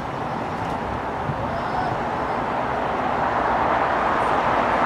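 Jet airliner engines running as the aircraft taxis past, a steady rushing roar that grows louder throughout.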